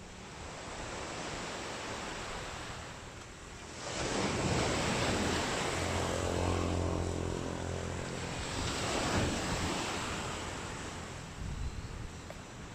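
Sea waves washing onto the beach, with a wave breaking suddenly about four seconds in and another swell near nine seconds, and wind buffeting the microphone. A steady engine drone sits underneath in the middle.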